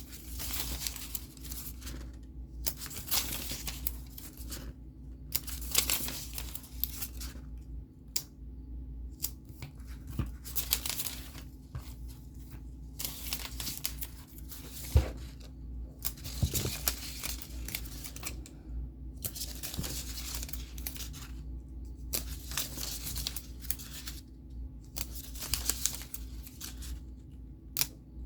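Paper or packaging being handled at close range: repeated bursts of rustling and tearing, each about a second long with short pauses between, and a single sharp knock about halfway through.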